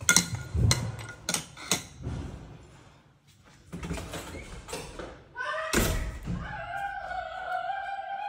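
A spoon clinks and scrapes against a ceramic bowl several times, then a door thuds shut about six seconds in. Near the end a person's voice calls out in one long, drawn-out tone.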